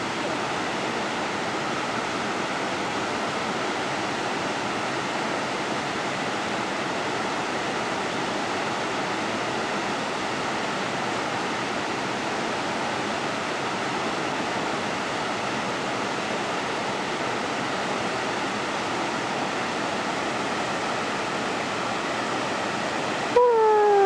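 Steady rushing of a waterfall: river water pouring over rock ledges into a pool. Near the end the sound jumps abruptly louder and a pitched tone slides steadily down.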